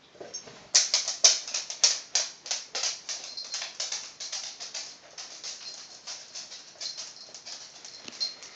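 Claws of a silver fox and a raccoon dog clicking and scrabbling on a hardwood floor as the two scamper about in play. It is a quick, irregular run of clicks that starts about a second in, loudest just after it begins.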